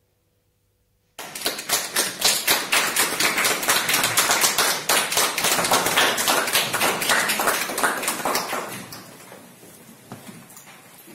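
A small audience applauding, a dense patter of many separate hand claps starting suddenly about a second in and dying away near the end.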